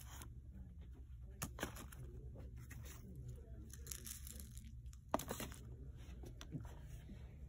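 Crinkling and rustling of something being handled, with a few sharp clicks, the loudest about one and a half and five seconds in, over a steady low hum.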